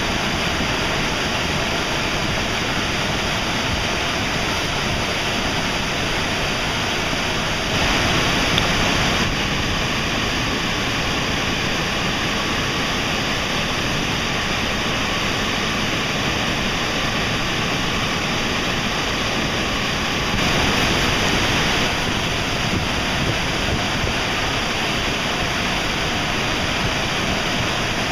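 Wai'ale Falls running in flood, with a heavy volume of brown water pouring over the rock ledges: a steady rush of falling water that swells slightly twice.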